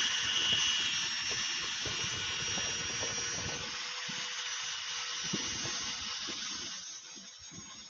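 Handheld electric drill spinning a hook-and-loop sanding pad against a turned maple burl platter, power-sanding with the final grit: a steady high motor whine over the hiss of abrasive on wood, easing off and quieter near the end.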